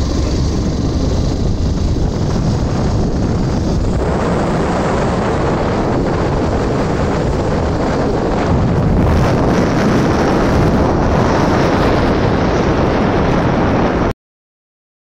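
Wind rushing over the microphone, with engine and road noise, from a vehicle riding along a road. It grows louder about four seconds in and cuts off suddenly about a second before the end.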